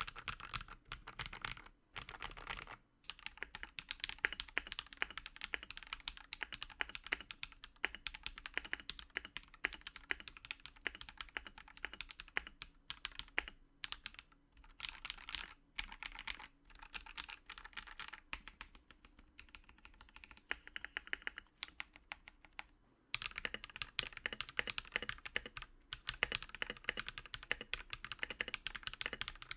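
Typing on a KL-90 mechanical keyboard in a wooden case, with lubed KTT Rose linear switches on an FR4 plate with no foam: a steady stream of key clacks, with short pauses about two seconds in and again near 23 seconds.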